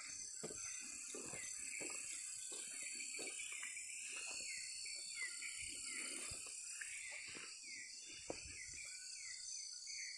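Tropical forest at night: insects keep up a steady high-pitched drone, over a string of short falling chirps repeating roughly twice a second. Irregular footsteps and rustling in the leaf litter run underneath.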